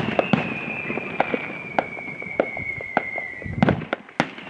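Aerial fireworks going off: a string of sharp bangs and crackling reports from bursting shells, the loudest at the start and a cluster near the end. A steady high whistle runs under them and stops about three and a half seconds in.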